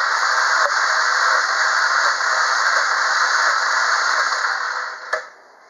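Starter cranking a BMW N46B20B 2.0-litre four-cylinder engine during a compression test of the third cylinder: a loud, steady whirring noise that cuts off about five seconds in with a click.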